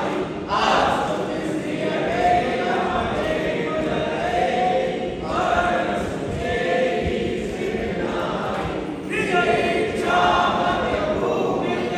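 Group of voices singing a Hindu aarti hymn together in long held phrases that break and start again about every four seconds.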